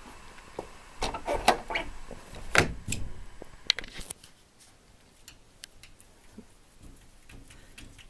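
Maine Coon cat pawing at a window pane: a flurry of squeaks, taps and scrapes in the first few seconds, then fainter scattered taps.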